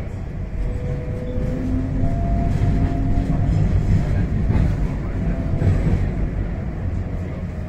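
Tram running, heard from inside the car: a steady low rumble of the ride with a few drawn-out whining tones, growing louder in the middle.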